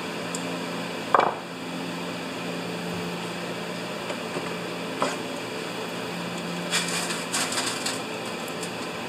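A few short scrapes of a metal blade on the mounting flange of a Tecumseh snowblower carburetor, working an old gasket off, near the end. A single knock comes about a second in, all over a steady low hum.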